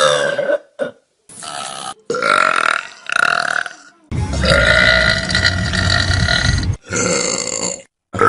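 A rapid series of loud human burps, one after another with abrupt cuts between them: several short ones, then a long drawn-out burp of nearly three seconds from about four seconds in, and another short one near the end.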